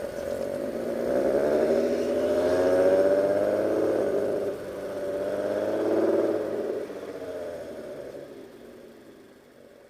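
Audi TT 8N 3.2 VR6 engine running through an aftermarket exhaust with a 200-cell sports catalytic converter. The note swells twice, with slight rises and falls in pitch, then fades away toward the end.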